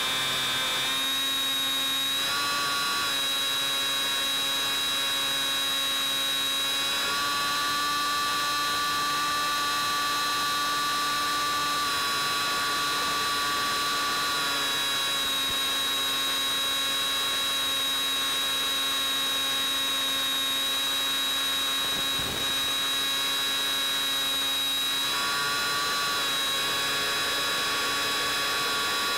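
Brushless electric motor and propeller of a Bixler 3 plane whining steadily as heard through the onboard microphone, the pitch stepping up and down a few times with throttle changes. The whine dips for an instant about two-thirds of the way through.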